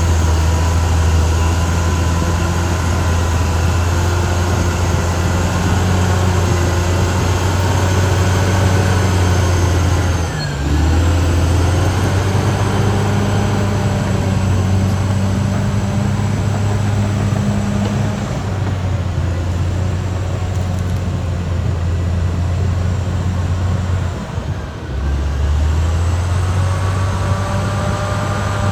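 Caterpillar D6R XL bulldozer's diesel engine running steadily with a deep drone, its note dropping briefly and picking up again twice.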